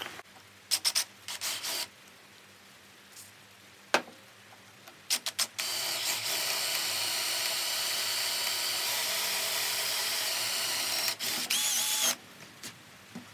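Electric drill running steadily for about five and a half seconds, boring holes that are to be tapped for M8 and M6 threads. Before it come a few sharp clicks and knocks, and near the end two short bursts of the drill starting up and stopping.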